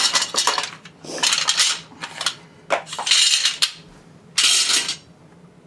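Steel parts of a flat-packed metal drawer cabinet, drawer slides and sheet-metal panels, being handled and set down. They clink and scrape in several short bursts with quieter gaps between.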